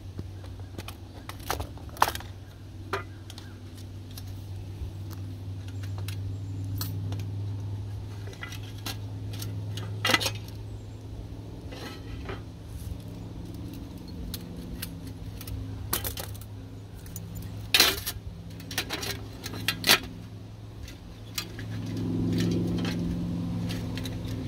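Light metallic clinks and clicks as a Firebox Nano folding stainless-steel stove is taken from its tin and its hinged panels unfolded, with occasional sharper taps of metal on metal and on the wooden tabletop. A steady low hum runs beneath and swells near the end.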